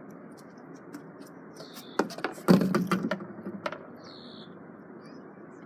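A quick flurry of knocks and clatter about two seconds in, lasting about a second and a half, over a steady hiss, with short bird chirps.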